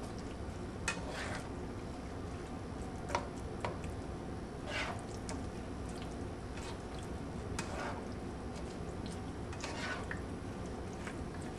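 A utensil stirring saucy ground turkey and peppers in a pan: wet squishing with scattered clicks and short scrapes against the pan.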